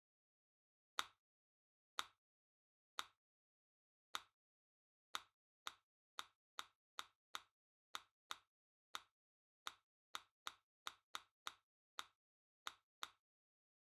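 A series of short, sharp click sound effects against silence, one for each table snapping into place as the tables are grouped. About one click a second at first, quickening to two or three a second from about five seconds in, and stopping about a second before the end.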